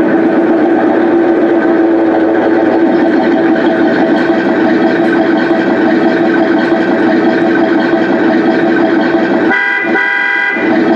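Toy pickup truck's built-in electronic sound effects playing loudly through its small speaker: a steady engine-like tone. About 9.5 seconds in, the low part drops out for about a second and a higher, horn-like tone stands out.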